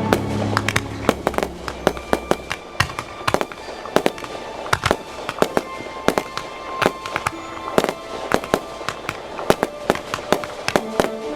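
Fireworks going off: a long, irregular string of sharp bangs and cracks, often several a second, over quieter background music.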